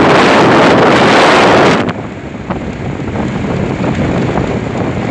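Heavy rushing water pouring down from a dam's outflow, a loud steady noise that drops off sharply about two seconds in to a quieter, continuing rush.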